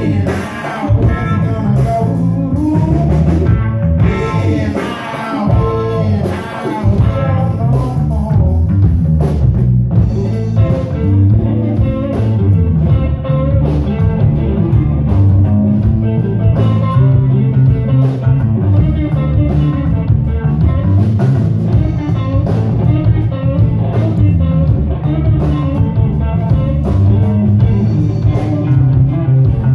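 Live rock band playing: electric bass, electric guitars and drum kit.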